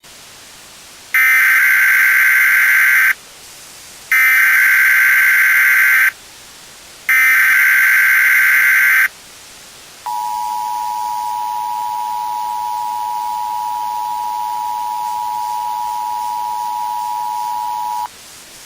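Emergency Alert System SAME header: three bursts of about two seconds each of buzzy digital data, about a second apart. It is followed by the EAS two-tone attention signal, held steady for about eight seconds. Together they open a new emergency alert message, with a faint hiss underneath.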